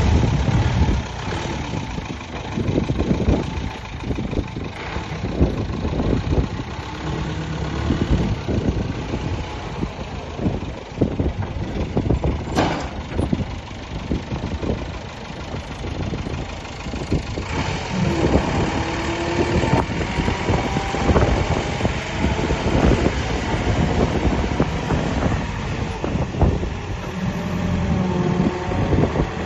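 JCB backhoe loader's diesel engine running, with frequent knocks and clanks throughout and short whining tones in the second half.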